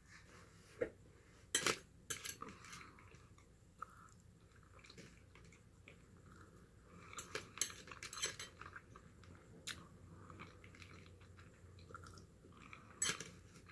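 Close-miked eating: chewing of roasted chicken with scattered clicks and clinks of cutlery against a dish, in short irregular bursts.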